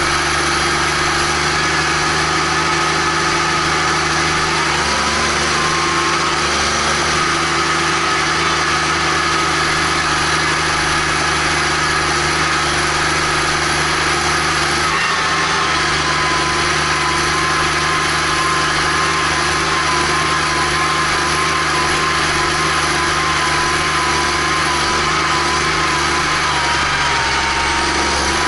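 Case IH Magnum 310's six-cylinder diesel engine running steadily, heard close to its exhaust stack as the tractor drives along, with a thin high whine that wavers slightly in pitch.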